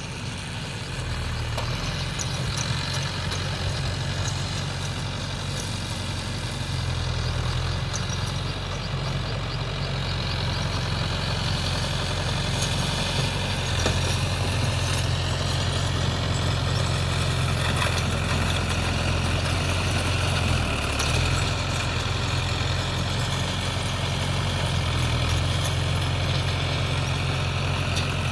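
Mahindra Yuvo 575 DI tractor's diesel engine running steadily while powering a baler, a constant low engine drone with a fainter higher machinery whine over it.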